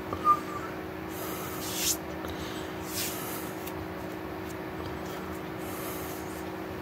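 A person's hands and breath while signing, under a steady electrical hum. There is a sharp tap early on, then short hissing puffs of breath about two and three seconds in.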